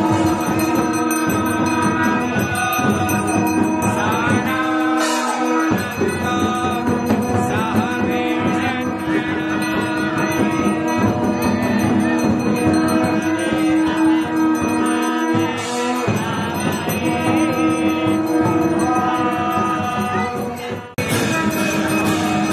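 Kirtan: group devotional chanting with instrumental accompaniment. It breaks off briefly near the end and starts again abruptly.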